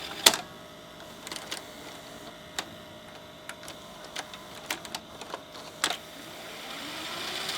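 Mitsubishi VCR's tape transport being run through its functions: a steady faint motor whine with a series of sharp mechanical clicks as the mechanism and buttons switch modes, its pinch roller freshly realigned. The running sound grows slowly louder near the end.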